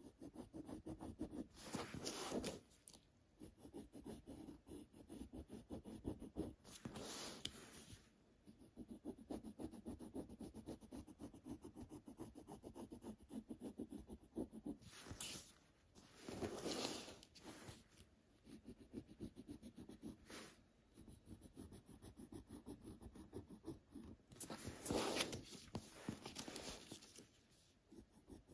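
Pencil scratching across a stack of paper in quick short strokes, faint, with a handful of louder, longer rubbing passes.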